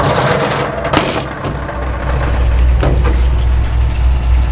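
Cast iron skillet scraped out across a steel mesh grate and set down on a stainless steel counter with a knock, then another knock about two seconds later, over a steady low rumble.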